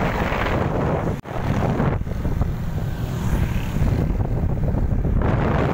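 Wind buffeting the microphone of a camera riding in a moving vehicle, a dense rushing rumble with road noise. The sound cuts out briefly a little over a second in.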